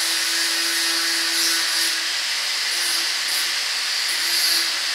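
Angle grinder with a 50-grit flap disc running steadily against a small steel piece: a steady hum under a hiss.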